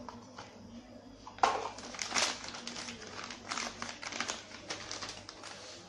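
Packaging of a new set of piston rings crinkling and rustling as it is handled and opened, starting with a sharp crackle about a second and a half in and running on as dense crinkling that tails off near the end.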